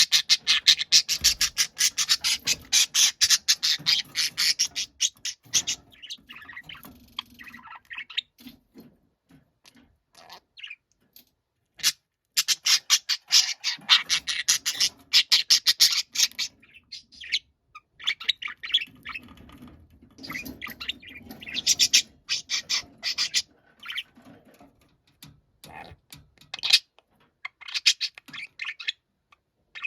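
Budgerigar squawking and chattering loudly in long runs of rapid, harsh calls, each run lasting several seconds with short breaks between.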